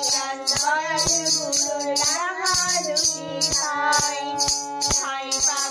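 A woman singing a melody to harmonium accompaniment, the harmonium holding steady sustained notes under her voice, over a regular percussion beat.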